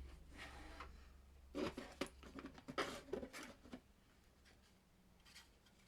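Light plastic clicks and scrapes from handling 3D-printed board-game insert parts and miniatures, in a few short clusters about two and three seconds in, over a low rumble from handling that stops about three seconds in.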